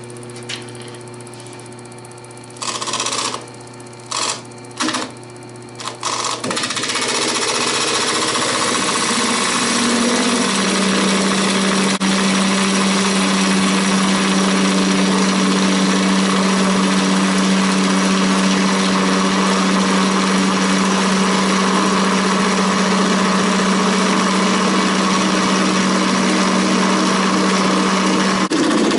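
Woodturning lathe running while a turning tool cuts a spinning blank of epoxy resin with embedded cassette tape. A few short cuts come in the first seconds over the motor hum, then from about six seconds a continuous loud, rough cutting noise over a steady low tone.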